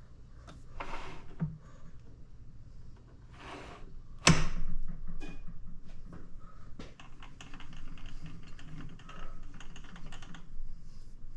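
Metal parts being handled on an old South Bend lathe while the live center and tailstock are set up. There is one sharp metal knock a little over four seconds in, then a run of quick small clicks and rattles.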